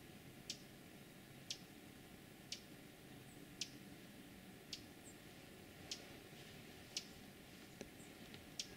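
Faint, sharp high-pitched clicks repeating about once a second over a low steady hiss, with a few fainter short high chirps between them.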